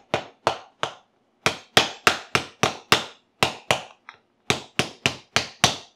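The spine of a chef's knife tapping a cooked lobster claw on a wooden cutting board to crack the shell: a run of sharp knocks, about three a second, with brief pauses about a second in and again around four seconds.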